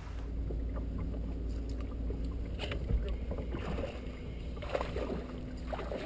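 Fishing boat on the water: a steady low rumble with a faint steady hum, and a few light knocks and splashes against the hull in the middle of the stretch.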